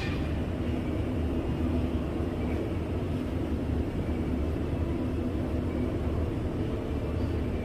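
Steady low rumble of indoor background noise in a large public building, with a brief hiss at the very start.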